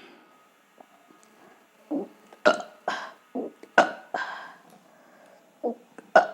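A woman belching on purpose: a quick run of short belches, about six between two and four and a half seconds in, then two more near the end.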